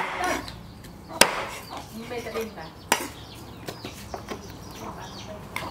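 Meat cleaver chopping through a snake's body onto a wooden chopping block: three sharp chops spaced over about three seconds, then a few lighter knocks.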